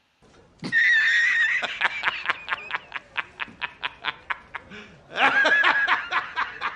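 Shrill laughter in a long run of rapid ha-ha pulses, about five a second, breaking out again louder about five seconds in.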